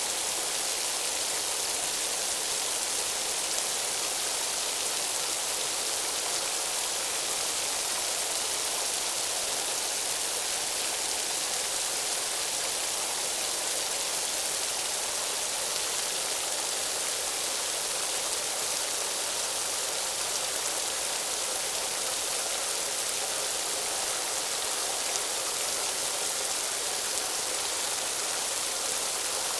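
A steady, even hiss, strongest in the treble, with no pitch, rhythm or change throughout.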